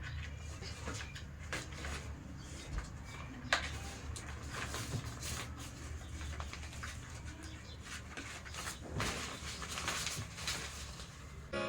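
Scattered light clicks and knocks as the parts of a baby high chair are handled and fitted together, with a sharper knock about three and a half seconds in, over a steady low hum.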